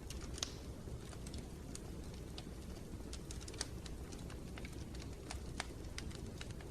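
Wood fire in a fireplace crackling: irregular sharp snaps and pops over a steady low rumble.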